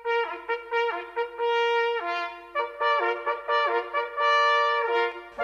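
A solo trumpet playing a melody of short and held notes as intro music.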